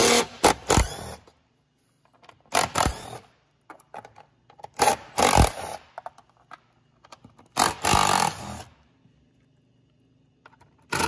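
Cordless impact gun with a 10 mm socket running in four short bursts of about a second or less, hammering as it backs out the air filter box bolts.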